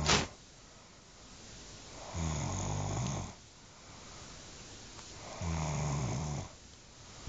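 A person snoring: low-pitched snores about a second long, one ending right at the start and two more about three seconds apart, with quieter breathing in between.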